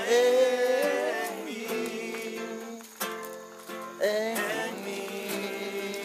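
Acoustic guitar strumming with singing of a Spanish worship song: a long held sung note at the start, then strummed chords, with fresh strums about three and four seconds in.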